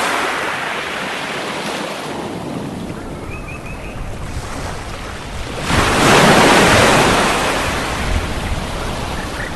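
Sea surf washing on a beach. The wash eases off, then a wave breaks suddenly about six seconds in, the loudest moment, and slowly dies away.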